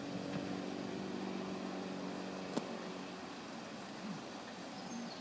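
An engine idling with a steady hum that stops about halfway through, at a single sharp click.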